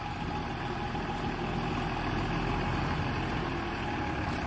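Heavy diesel lorry's engine running steadily at low revs as the truck creeps forward.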